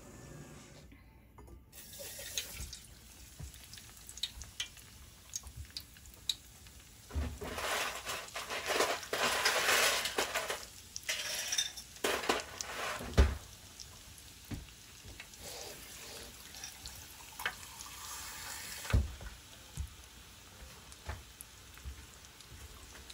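Breaded shrimp deep-frying in hot oil: a steady sizzle peppered with small crackles and pops. It swells louder for a few seconds near the middle, and two sharp knocks stand out.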